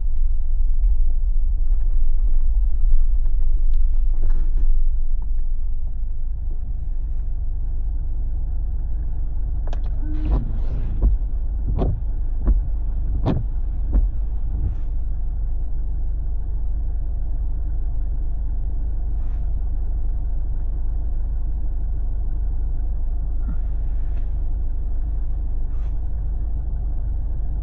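Steady low rumble of a Jeep's engine and tyres heard from inside the cabin while driving, with a few short sharp knocks a little before the middle.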